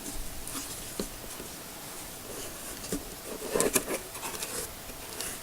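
Cardboard microphone box being handled and opened: scattered light taps and clicks, then a short run of scraping and rustling about two thirds of the way in.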